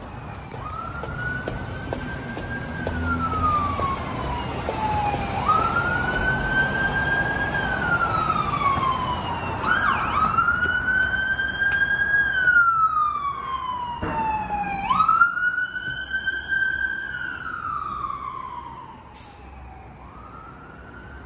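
Emergency vehicle siren in a slow wail, about one cycle every five seconds: a quick rise in pitch, a short hold, then a long fall. It runs over a low traffic rumble and grows louder, then fades near the end.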